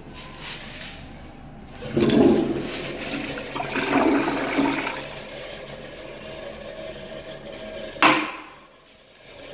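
Gerber tank toilet flushing: a loud rush of water starts about two seconds in and swirls down the bowl for a few seconds, then settles to a quieter steady running of water. A single sharp knock near the end.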